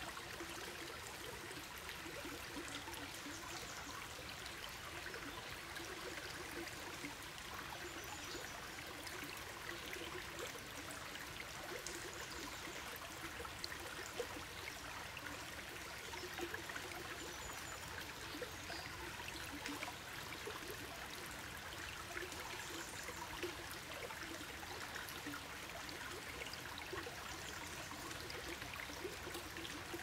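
Campfire crackling: a steady hiss with small pops and snaps scattered irregularly throughout.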